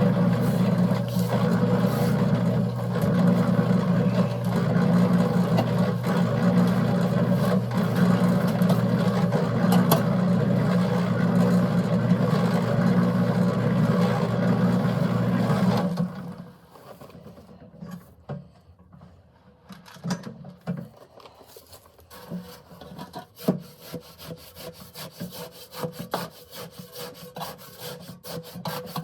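Concrete mixer running, a steady loud hum with wet concrete churning and grating in the turning drum. About halfway through the hum drops off sharply, leaving quieter, irregular gritty scraping and scattered clicks.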